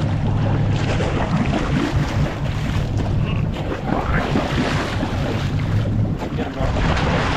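Boat engine running steadily with a low hum, under wind and sea noise buffeting the microphone.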